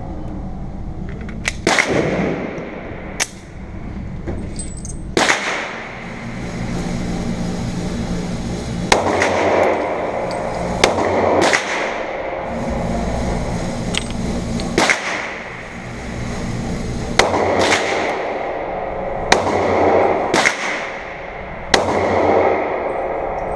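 Taurus PT140 Millennium Pro .40-calibre pistol firing about a dozen single shots at irregular intervals, each crack followed by a short ring-out, over a steady background noise.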